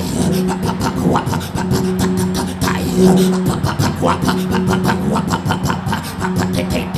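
Background prayer music: a sustained low drone held under a fast, steady ticking beat, with a few brief sliding vocal sounds.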